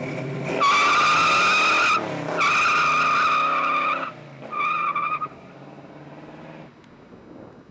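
A 1972 Chevelle SS's LS5 454 big-block V8 at full throttle, its rear tyres spinning and squealing loudly in a burnout. The squeal breaks off briefly about two seconds in, picks up again, stops about four seconds in, and chirps once more for under a second. Then the engine fades as the car pulls away.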